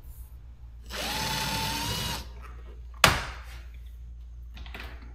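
Cordless drill running for just over a second, its pitch rising slightly as it spins up, then a single sharp knock about two seconds later.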